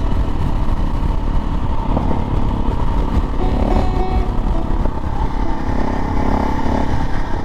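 KTM 640 Adventure's big single-cylinder LC4 engine running steadily as the motorcycle is ridden along at road speed, heard with a steady rush of riding noise.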